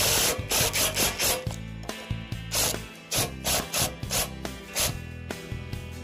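Background music with a quick, steady beat.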